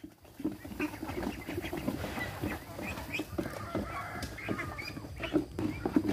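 A flock of domestic ducks quacking, many short calls overlapping one another.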